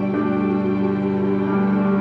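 Background music: slow ambient music of long held chords that shift every second or so.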